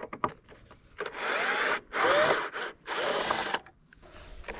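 Green cordless drill backing screws out of old weathered wooden boards: three short bursts of running, with a wavering motor whine, after a few light clicks at the start. A fourth burst begins near the end.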